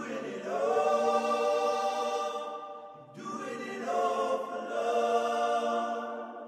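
Background music of long held chords in two phrases, with a short break about three seconds in, fading out near the end.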